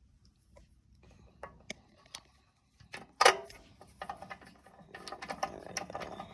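Small metal parts and hand tools being handled: scattered clicks and knocks, one sharp clank about three seconds in, then a run of rattling clicks.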